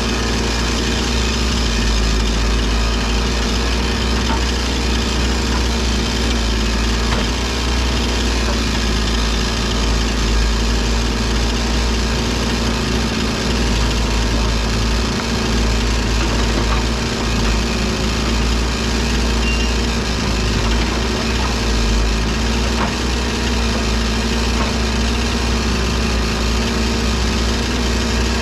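Excavator's diesel engine running steadily at a constant speed, with no clear revving or load changes.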